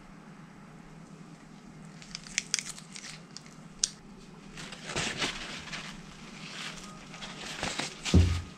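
Sharp light clicks of metal tongs and a stainless steel tray as wet marinated pork is set down, then paper towel rustling and crinkling as it is handled over the meat. A loud low thump comes near the end.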